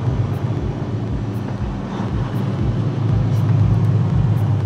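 Freightliner Cascadia semi truck cruising at highway speed, heard from inside the cab: a steady low drone of engine and road noise.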